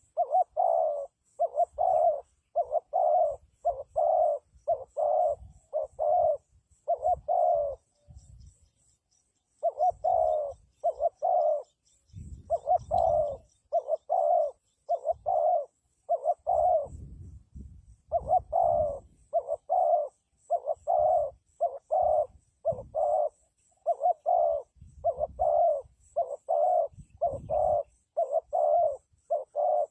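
Spotted dove cooing: a long run of short, evenly spaced coo notes, about two a second, broken twice by brief pauses.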